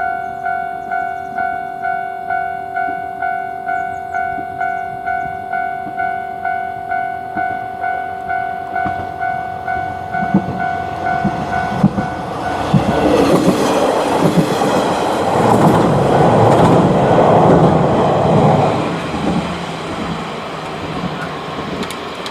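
Japanese level crossing's electronic warning bell ringing "kan-kan" at about two strikes a second through the first half. About halfway through it gives way to a diesel limited-express railcar passing over the crossing, with wheel clicks and engine noise loudest for several seconds. The train then settles to a lower rumble and a steady engine drone.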